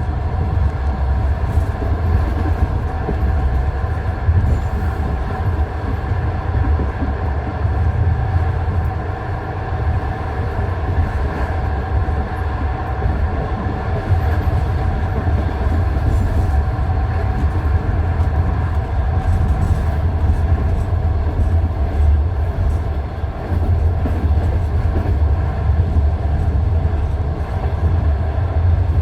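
Passenger train carriage running over jointed rail track: a steady low rumble with the clack of wheels striking the rail joints, as heard inside the car.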